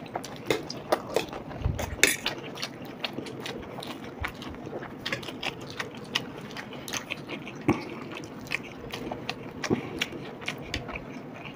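Two people eating spicy veg chow mein: irregular small clicks and smacks of chewing, with a fork now and then on a plate.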